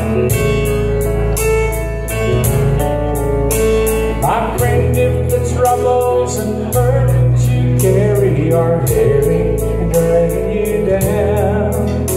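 Instrumental break in a gospel song played on electronic keyboard, with a steady beat underneath. A wavering melody line comes in about four seconds in; no words are sung.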